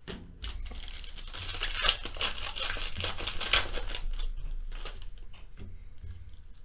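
Foil wrapper of a 2016 Topps Tier One baseball card pack being torn open and crinkled by hand. A dense crackling lasts about four seconds, then lighter crinkles follow as the foil is peeled back.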